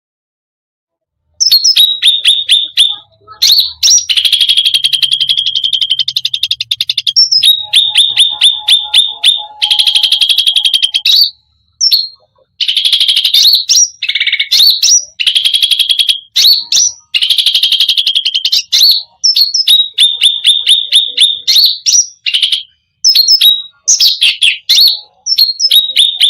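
Cucak rante singing a long, vigorous song packed with imitated phrases: fast series of sharp repeated notes and rapid trills, separated by short pauses. It starts after about a second and a half of silence.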